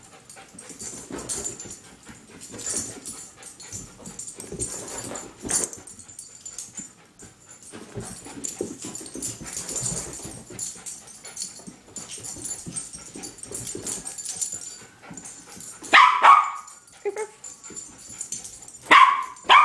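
Bichon frise dog excitedly chasing a laser dot, making rough, unpitched sounds about once a second, then giving two short, loud barks near the end, a few seconds apart.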